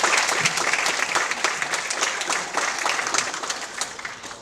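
Audience applauding: dense clapping from many hands that thins and fades out toward the end.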